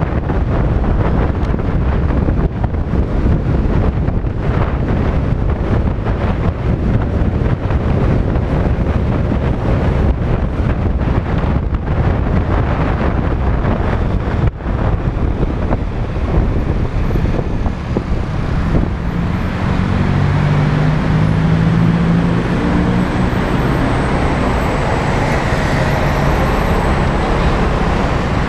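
Wind buffeting the action camera's microphone on a moving scooter, over road and engine noise. About two-thirds of the way through the buffeting eases as the scooter slows into traffic, and a low engine hum and road traffic come forward.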